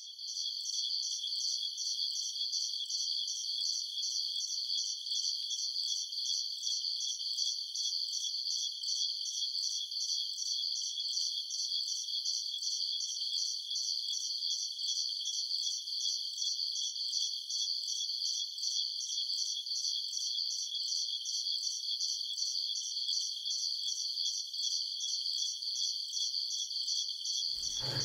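High-pitched insect chirping, repeating in even, rapid pulses without a break.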